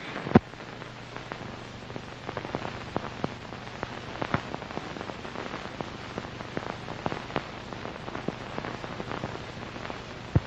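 Hiss, low hum and scattered irregular clicks and pops of an old film soundtrack, with one sharp pop just under half a second in.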